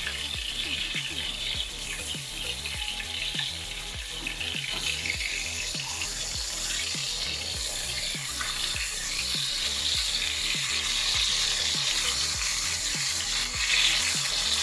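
Burger patties sizzling in a hot frying pan, a steady hiss with fat crackling, growing louder about five seconds in.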